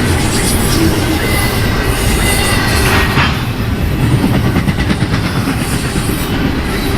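Freight cars rolling past, a steady rumble with the wheels clacking over rail joints and a faint high squeal from the wheels.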